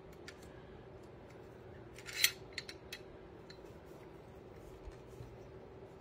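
Small metal clicks and rattles from a heavy-duty metal staple gun and its staple magazine being handled during loading, with one sharper click a little over two seconds in.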